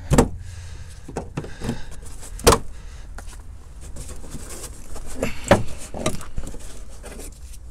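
Plastic wheel-well liner being pried loose with a screwdriver and pulled back by hand: scattered clicks and knocks of flexing, snapping plastic, the loudest about two and a half seconds in.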